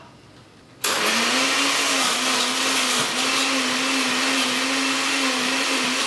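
Hamilton Beach Wave Crusher blender (model 54221, 700 W, glass jar) switched on about a second in, its motor running at a steady pitch as it blends frozen berries and ice into a smoothie.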